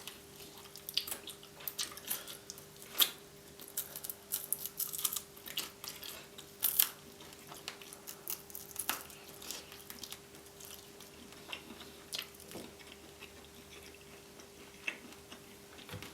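Close-miked eating: chewing with irregular wet mouth clicks and smacks, busier in the first half and sparser toward the end.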